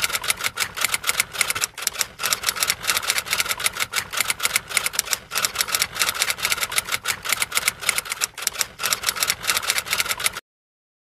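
Typewriter sound effect: rapid key clicks, several a second, keeping pace with text being typed out. The clicks stop abruptly near the end.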